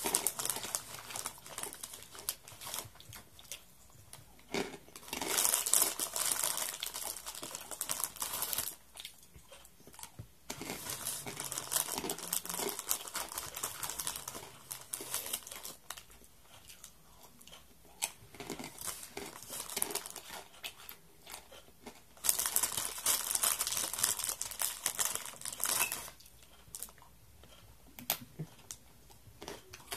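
Plastic snack wrapper crinkling as it is handled, in a few bouts of several seconds each with quieter rustling between.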